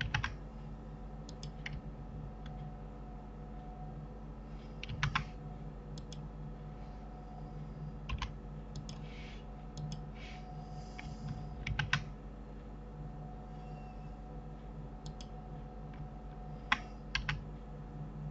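Computer keyboard keys and mouse buttons clicking here and there, singly and in short clusters with pauses between, over a steady low hum.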